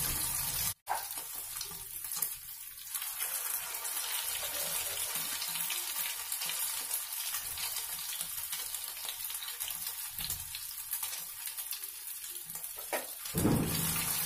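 Rice and vegetable cutlets, dipped in egg, shallow-frying in hot oil in a frying pan: a steady sizzle and crackle, with a louder burst near the end.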